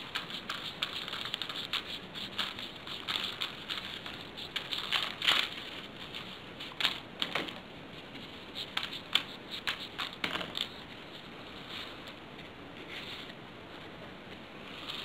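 Folded paper origami modules rustling and clicking as they are handled and slid onto the points of the row below, in irregular small bursts.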